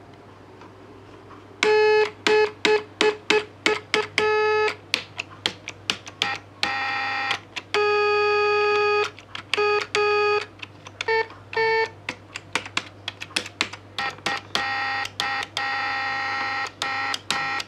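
Homemade electronic tone generator beeping as keys on a wired-up keyboard switch array are pressed, a buzzy tone rich in overtones. From about two seconds in, rapid short beeps and some held notes jump between a few different pitches, with a click at each key press and a low steady hum underneath.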